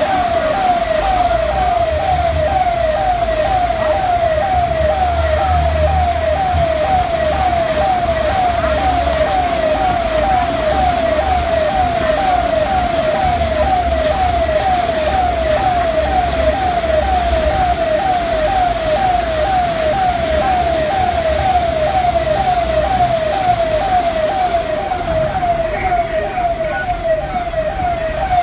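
Siren with a fast, even warble: short downward sweeps about twice a second, the same pitch and loudness throughout, over a low rumble that fades out about two-thirds of the way through.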